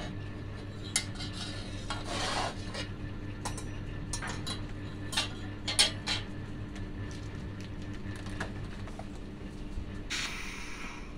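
Scattered sharp metallic clicks and a few short scraping rasps from thin stainless steel rod being handled and worked by hand. A steady low electrical hum runs underneath.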